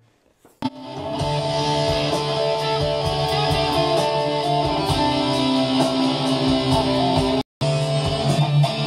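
Electric guitar playing a slow, sustained soundtrack-style passage, starting about half a second in, heard through a phone recording. The sound cuts out for a split second near the end.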